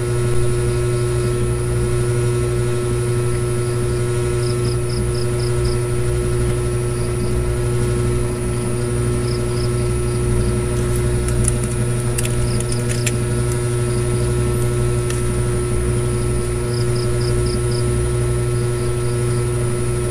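A steady low mechanical hum, with faint high chirps in short trains of four or five that repeat every couple of seconds, and a few light clicks around the middle.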